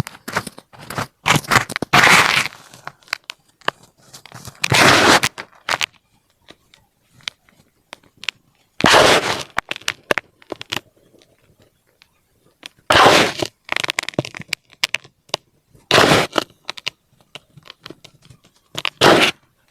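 Compressed baking soda being crushed, crunching in about seven short bursts a few seconds apart, with small crackles between them.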